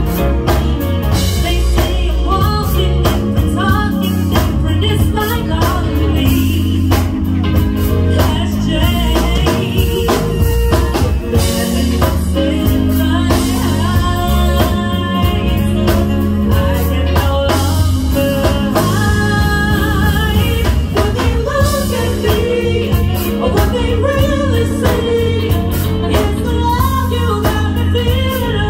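Live band playing: a woman singing lead over electric guitar, saxophone, keyboard and drum kit, with a steady drum beat and a strong bass line.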